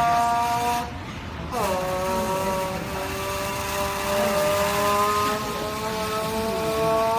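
Imitation car sound made with a can: a sustained buzzing tone that breaks off about a second in, then comes back with a quick downward slide in pitch, holds steady and rises slightly near the end.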